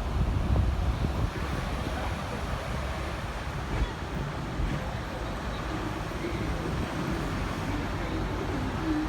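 Steady low rumble and road noise of a Hong Kong double-decker tram running, heard from on board; a little louder in the first second or so.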